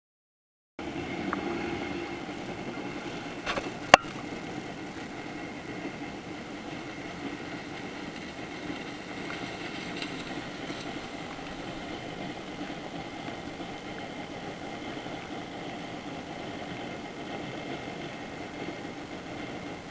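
Silence, then from about a second in a watercraft engine running steadily under a constant hiss; a single sharp click about four seconds in is the loudest sound.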